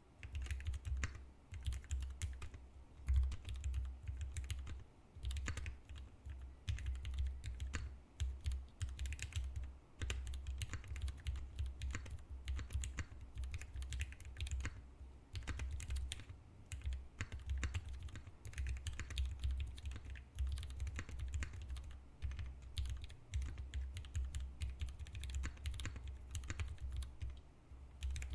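Continuous typing on a 60% mechanical keyboard with vintage Cherry MX Black linear switches lubed with Krytox 107, a brass plate and GMK doubleshot keycaps: dense, irregular keystrokes, several a second, each with a low bottoming-out knock.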